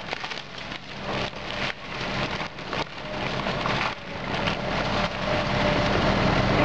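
Wood cracking and splintering in a rapid string of sharp cracks as a hydraulic excavator's bucket tears into a wood-framed house. The excavator's diesel engine runs underneath and grows louder toward the end.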